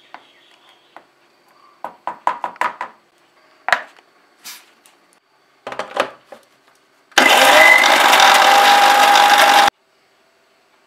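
Metal clinks and clatter as a spoon scrapes the food and a steel jar is handled and set on its base, then an electric mixer grinder runs loud and steady for about two and a half seconds, grinding the cooked lentils and ridge gourd peels into paste, and cuts off suddenly.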